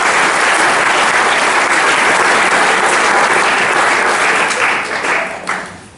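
Audience applauding loudly, the clapping thinning out near the end and then dying away.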